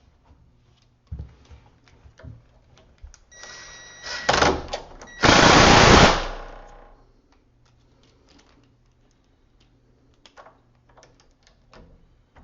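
Power drill driving a screw to fasten a deadbolt latch plate into the door edge: a motor whine starts about three seconds in and rises to a loud run of about a second before fading. Small clicks and handling taps come before and after.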